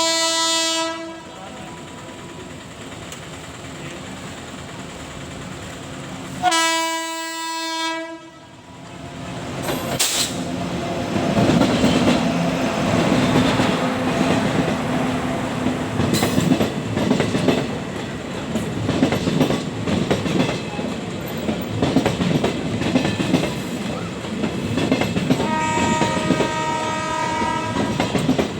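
A WAP7 electric locomotive's horn sounds three times: a short blast at the start, a louder, longer one about seven seconds in, and another near the end. In between, the train's wheels clatter steadily over the rail joints as it comes in, getting louder.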